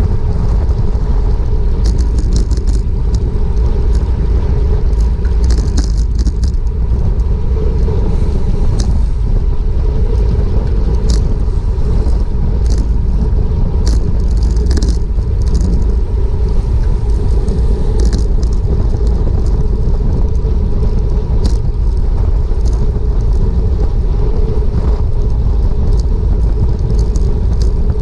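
Wind rushing over a bike-mounted action camera's microphone while riding at speed, a steady loud rumble, with scattered small clicks throughout.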